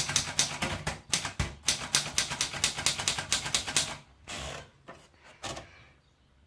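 Royal Royalite 100 manual portable typewriter being typed on: a fast run of key strikes for about four seconds, then a longer rasping sound and one or two last clicks before the typing stops.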